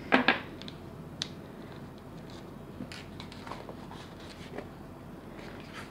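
Handling clicks and taps of a plastic airsoft magazine being taken apart, with a small screwdriver set on a table: two sharp clicks right at the start, another about a second in, then faint small plastic clicks and rubbing.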